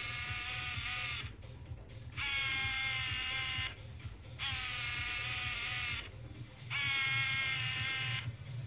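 Fujifilm Tiara Zoom's lens zoom motor whining in four runs of about a second and a half each, with short pauses between, as the 28–56 mm lens is driven in and out. Each run holds a steady pitch that sinks slightly.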